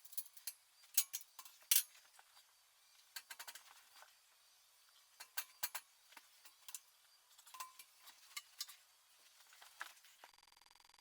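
Small metal parts clinking and clicking in irregular clusters, light and sharp. A steady electrical hum starts near the end.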